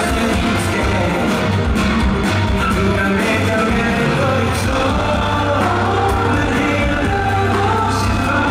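Live pop-rock band playing with a male lead voice singing over it, steady and loud throughout.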